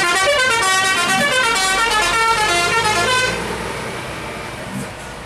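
Coach's multi-tone musical telolet horn playing a quick run of stepping notes, several tones at once, for about three seconds, then the bus running as it pulls away.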